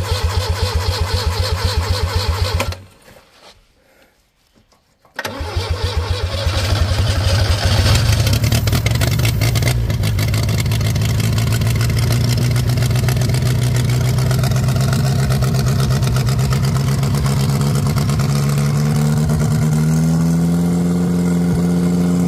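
Old Opel truck engine being cranked on its starter motor in two goes. A short burst of about three seconds comes first. After a pause comes a long, steady run of about seventeen seconds that speeds up slightly near the end, and the engine does not start.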